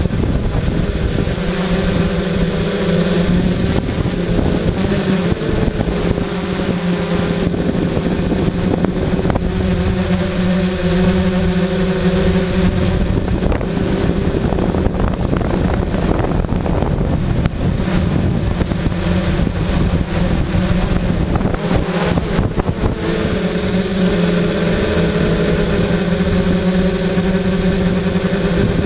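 A homemade quadcopter's electric motors and propellers running in flight, heard from the camera mounted on it: a steady hum whose pitch shifts a little with the throttle, giving way to more rushing noise and a weaker hum in the middle stretch.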